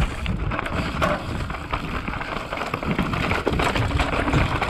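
Mountain bike riding down a dirt trail: tyres crackling and rattling over dirt and roots, with a constant low rumble.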